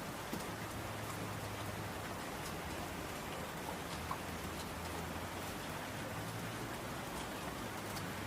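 Steady rain pattering on a window, with a few scattered faint ticks.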